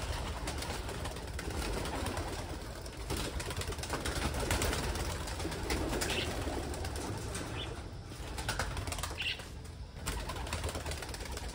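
Pigeons in a loft, flapping their wings and cooing, with scattered short clicks and rustles and a few brief high calls.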